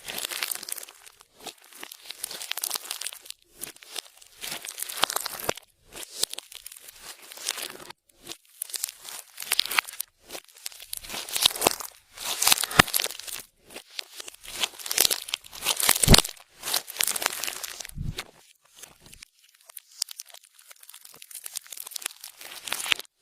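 Clear slime being squished and worked by hand, crackling and popping in repeated bursts with short pauses between them.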